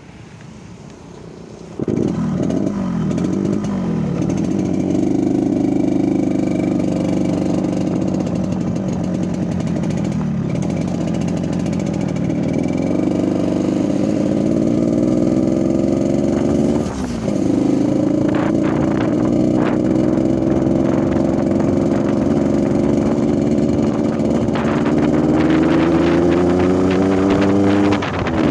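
Yamaha RX-King's 135 cc single-cylinder two-stroke engine running with the rough 'ngorok' (snoring) exhaust note it is being tuned for. It comes in loudly about two seconds in, revs up and down briefly, then runs steadily, with the revs climbing slowly near the end.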